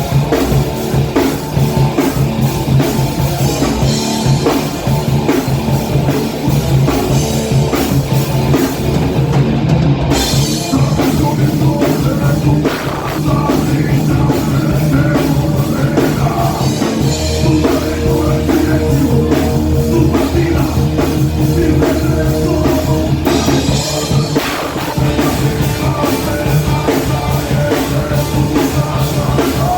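Heavy rock band playing live: distorted guitars, bass and a pounding drum kit. The low end gets heavier about halfway through.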